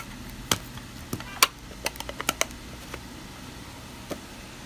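A speed cube and its clear plastic display box being handled: a quick run of sharp plastic clicks and taps as the cube is pulled out of the box and set down, mostly in the first half, with one more tap near the end.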